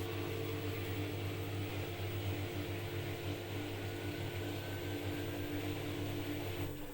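Front-load washing machine on its spin cycle: a steady motor and drum hum with a faint rising whine, running smoothly with no knocking or vibration now that the machine is levelled and its transit bolts are out. The low part of the hum drops away near the end.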